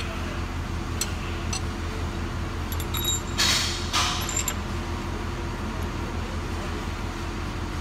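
Steel tools clinking on an engine block as a piston wrist pin and a head bolt are set on a cylinder sleeve: a few light metallic clicks, and a short rushing noise about three and a half seconds in, over a steady low hum.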